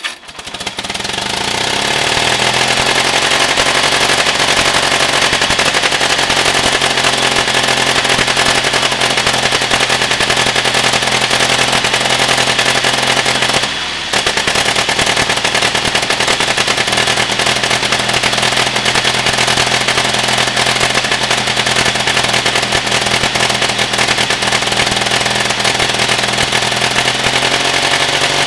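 Two-cylinder gasoline pony motor of a 1946 Caterpillar D6 (5R series) running just after starting. It speeds up over the first couple of seconds, runs steadily with a brief dip about halfway through, then carries on steadily.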